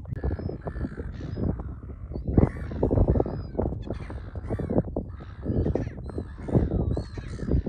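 A nesting bird colony, many birds giving harsh, overlapping calls that mix with gliding, whistly notes.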